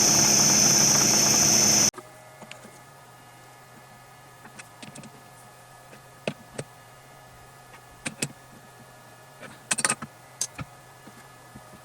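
A workshop power tool running loudly with a high whine, cut off abruptly about two seconds in. Then a quiet room with scattered small metallic clicks and taps.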